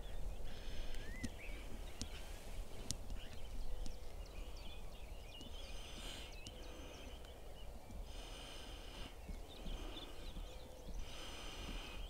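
Faint open-country ambience: scattered bird chirps and short trills over a low wind rumble on the microphone.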